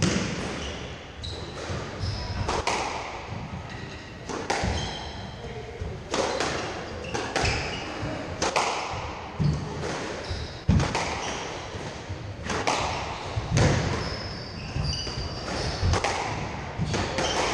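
Squash rally: the ball cracks off the rackets and the walls about once a second, often two hits close together, each echoing around the court. Short shoe squeaks on the wooden floor come in between.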